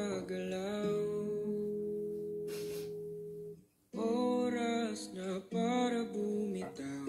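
A male voice sings a slow ballad over acoustic guitar. A long held note fades away about halfway through, there is a brief pause, and then the singing starts again over the guitar.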